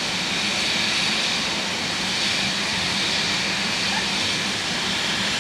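Steady hiss of steam escaping from beneath the cab of BR Standard Class 4 steam locomotive No. 76084 as it stands at the platform, with a low steady hum under it.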